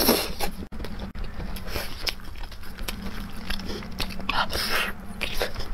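Close-miked chewing and mouth sounds of someone eating braised pork knuckle: a run of short, irregular smacks and bites, with a louder burst a little past four seconds in.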